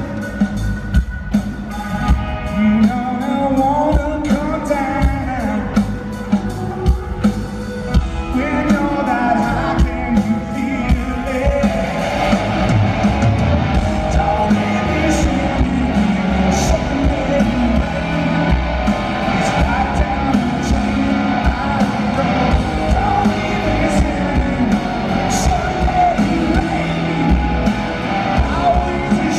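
Live rock band in an arena: drum kit, electric guitars and bass with a male lead vocal, heard from the crowd with the hall's echo.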